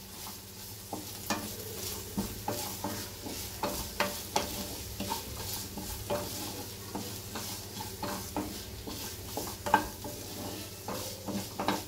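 Wooden spatula stirring diced potatoes and onions in a kadai, scraping and tapping against the pan in irregular strokes, over a light sizzle of frying oil.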